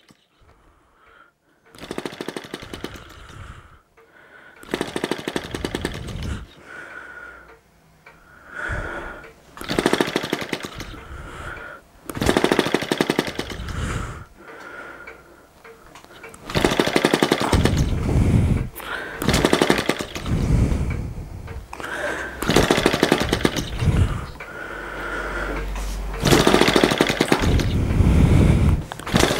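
Small split-cycle two-stroke model engine firing in a rapid stutter, in repeated short bursts of one to three seconds that catch and die out. The bursts grow louder and longer in the second half. The engine is catching but not yet keeping running.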